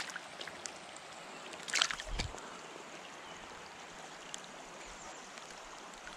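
Stream water running steadily, with a short cluster of sharp clicks and a low thump about two seconds in.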